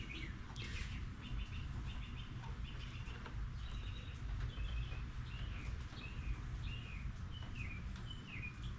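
A songbird singing: first a quick run of short repeated chirps, then a string of short down-slurred notes, one every half second or so, over a steady low background rumble.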